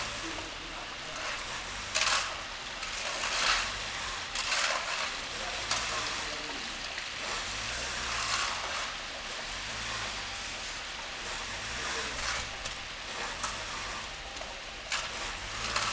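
Stuck van's engine running with a low hum that swells and fades about once a second, under a steady rushing hiss, with several brief loud bursts of noise.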